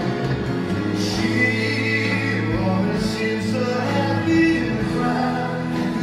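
Music with a singing voice over long held instrumental notes.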